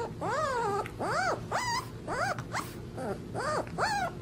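Puppy yowling in a string of short, high calls, about two a second, each one rising and then falling in pitch.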